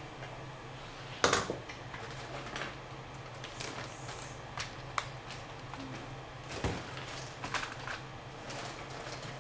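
Scattered light clicks, knocks and rustles of hands handling things on a bench, over a steady low hum. The sharpest knocks come about a second in and again about two-thirds of the way through.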